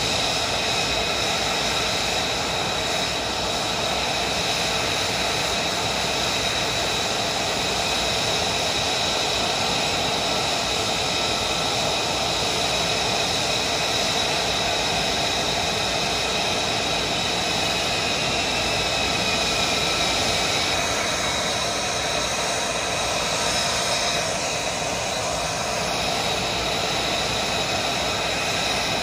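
F-35 fighter's Pratt & Whitney F135 turbofan running steadily while the jet stands parked: a loud, even jet noise with several high steady tones.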